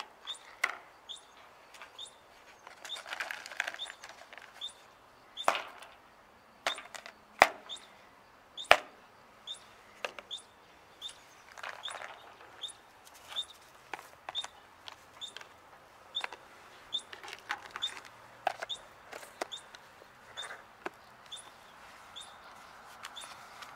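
Plastic pet dishes and a food container clicking and knocking on concrete as cat food and water are set down, with a few brief rustles in between. Short high chirps repeat steadily throughout.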